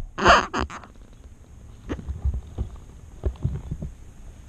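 Handling noise from a phone microphone pressed against a shirt: a short rustling burst at the start, then scattered low thumps and scuffs.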